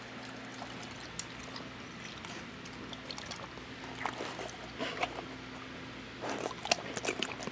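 A standard poodle panting quietly and licking right at the microphone, tired after a bout of zoomies; a few soft wet mouth noises come in the second half.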